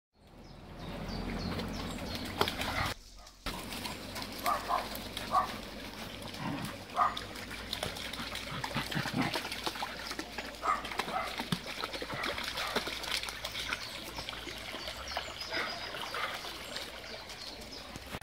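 Springer spaniels splashing and wading through a shallow stream over the steady trickle of running water, with a few short dog whines.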